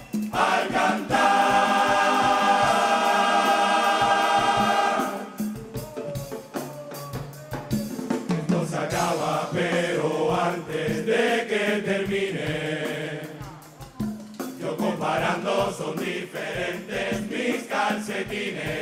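A murga chorus singing with drum accompaniment: the voices hold one loud chord for about five seconds, then go on in a quieter, moving sung passage over a steady drum beat.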